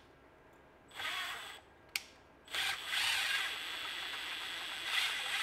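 Cordless drill-driver running slowly to drive a long screw into a plastic bracket: a short pulse about a second in, a sharp click, then a steadier run from about two and a half seconds on.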